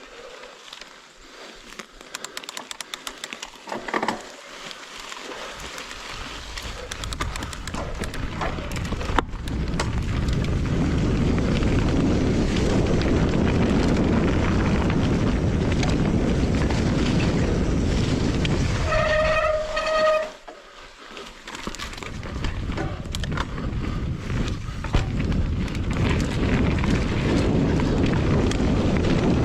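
Wind rushing over the microphone with tyre and trail noise from a mountain bike riding downhill, building up over the first ten seconds and then holding steady. About nineteen seconds in comes a brief pitched squeal in a few short pulses; the rush then drops for a moment before picking up again.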